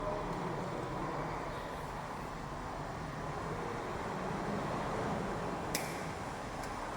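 Steady background noise with one sharp click about six seconds in.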